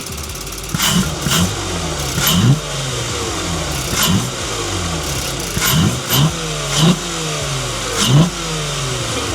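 Volkswagen Atlas engine with an open intake filter being free-revved in about eight quick blips, each pitch rising sharply then falling back toward idle, with the engine running between them.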